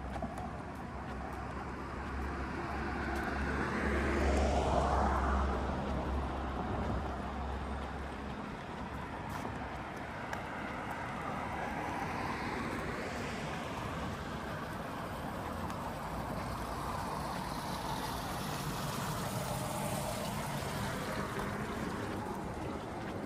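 Road traffic: cars passing one at a time on the street alongside, each swelling and fading. The loudest passes about four to five seconds in, with weaker ones about twelve and twenty seconds in.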